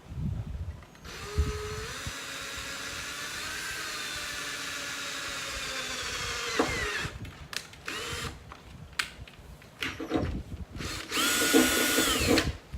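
Power drill whining steadily as it bores a pilot hole into a car's sheet-metal rear deck lid for about six seconds, pitch creeping up, then winding down. A few short bursts follow, then another brief run of the drill near the end.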